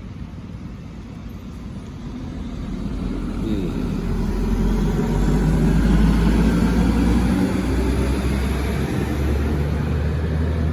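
Large intercity bus with a diesel engine approaching and passing close by. The engine rumble grows louder over the first few seconds, is loudest about halfway through, and stays loud to the end.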